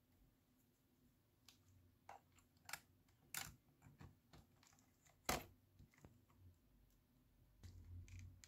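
Scattered light clicks and taps from an opened Sony WM-F15 Walkman and its small parts being handled, with one sharper knock a little past the middle and a few more taps near the end.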